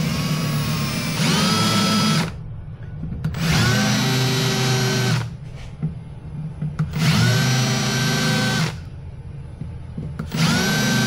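Cordless drill running a reamer bit into old screw holes in a fiberglass boat deck, enlarging and cleaning them so they will take filler. It runs in four short bursts of about two seconds each, the whine climbing as the motor spins up, with brief pauses between.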